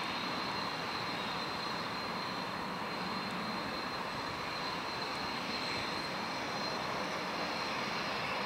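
T-38 Talon jet trainers' General Electric J85 turbojet engines running steadily: an even rushing noise with a high, steady whine.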